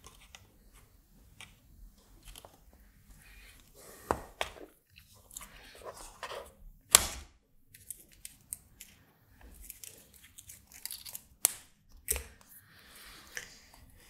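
Handling noise from a circuit-board kit with plastic toggle switches being turned over and set down: irregular clicks, rustles and knocks, the sharpest a single knock about seven seconds in.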